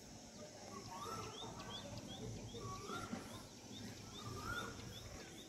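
Faint birdsong: a rising-and-falling call repeated about every second and a half, over a quick run of short high chirps, about three a second.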